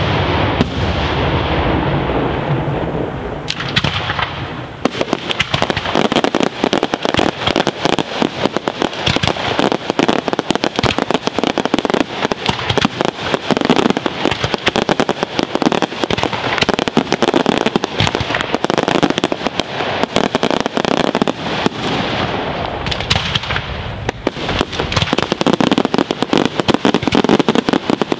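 Daytime aerial fireworks: shells bursting overhead, then from about four seconds in a continuous dense crackle of countless small crackling stars popping in quick succession.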